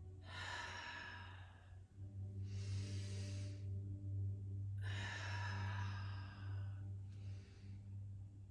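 A woman breathing slowly and deeply, in and out audibly through a held yoga stretch, with sighing out-breaths. A steady low hum runs underneath.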